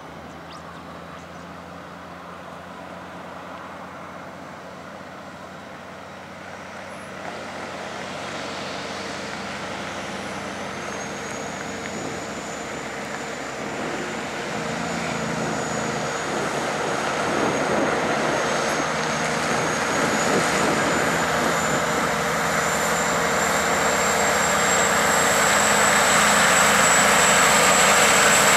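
Diesel engines of a heavy-haulage pair approaching under load: a Kenworth K104 helper truck and a Western Star prime mover pulling an oversize load. The sound grows steadily louder as they come closer, and a high whine joins about ten seconds in.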